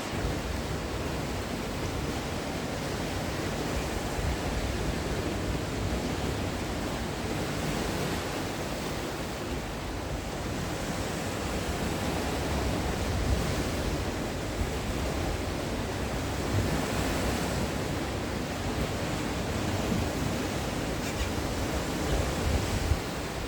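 Sea waves washing against the shore, a steady rush of surf that swells and eases gently, with wind buffeting the microphone at times.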